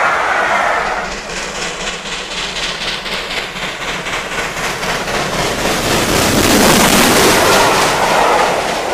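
A steam locomotive approaching at speed with a rapid, rhythmic exhaust beat that grows louder as it comes close, then the noise of its coaches passing by. It opens with the end of another train's coaches rushing past, their sound falling away within the first second.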